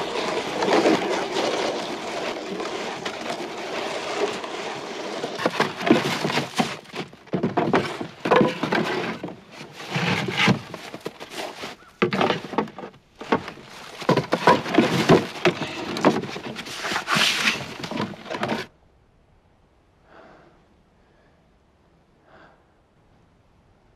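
Wooden boards and boxes being shifted and knocked about in a snowy woodpile or shed: a dense run of scraping, knocks and clatter that cuts off abruptly about eighteen seconds in, leaving near quiet with a few faint soft sounds.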